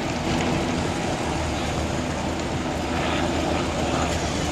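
Trial truck's engine running steadily at low revs as the truck holds still on a steep slope.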